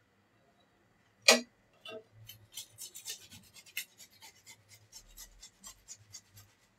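Light handling noises: one sharp knock about a second in, then a string of small irregular clicks and rubbing sounds.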